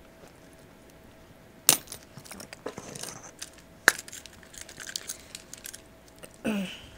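Metal keys clinking and clicking against the small metal hooks of a leather six-key holder as a house key is fitted on, with two sharp clicks about two and four seconds in among lighter ticks and rustling.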